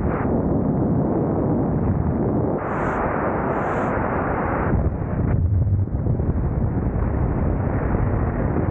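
Wind rushing over an action camera's microphone at freefall speed: a steady, dense rush with a brighter hiss for about two seconds near the middle.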